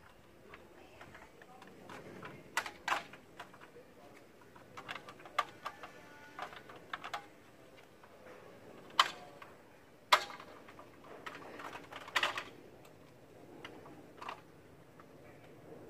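Sumika SKM404 aluminium multi-purpose folding ladder being unfolded and stood up: its hinge locks clicking and its aluminium rails knocking, in irregular sharp clicks with two loud knocks near the middle and a short cluster after them.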